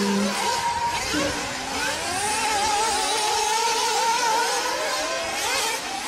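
Several radio-controlled off-road cars running around a track, their motors whining and rising and falling in pitch as they speed up and slow down.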